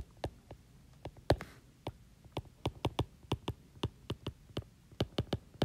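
A stylus tapping and clicking on a tablet's glass screen during handwriting: an irregular run of sharp light clicks, several a second.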